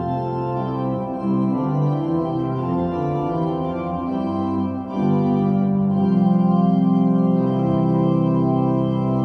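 Organ playing slow, sustained chords, with the notes moving over the first few seconds and then settling into a louder, fuller held chord about five seconds in.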